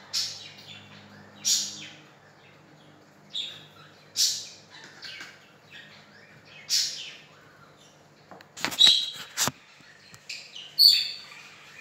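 A pet bird chirping: short, high calls every second or two. A quick run of sharp clicks comes about three-quarters of the way through.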